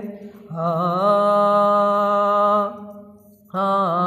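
A man singing a Punjabi naat unaccompanied, drawing out two long held vowel notes. Each note wavers at its start, and there is a short breath pause between them about three seconds in.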